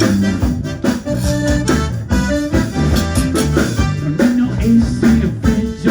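Live band playing an up-tempo, accordion-led song over a moving bass line.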